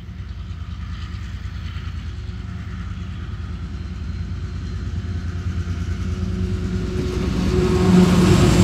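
A train of diesel freight locomotives approaching with a low engine drone that grows steadily louder, loudest as the lead locomotive draws level near the end.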